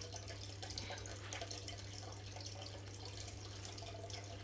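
Faint, steady trickle of running water over a low hum, with light rustling and small ticks as the pothos stems and moss pole are handled.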